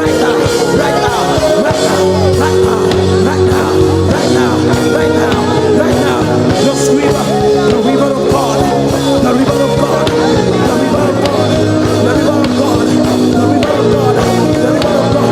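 Live worship music: held chords with singing over them, steady throughout.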